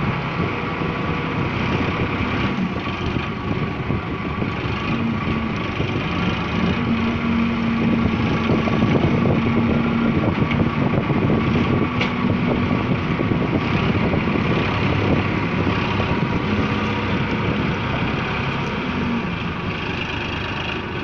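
Tractor diesel engine running under load as it drives the hydraulic grab loader lifting sugarcane. A humming tone rises over the engine for a few seconds at a time, twice.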